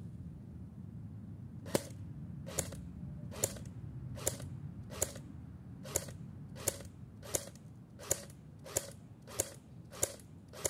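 CYMA 028U AK-style airsoft electric gun firing in semi-automatic, single shots: about a dozen sharp shot clicks, roughly one every three quarters of a second, beginning about two seconds in.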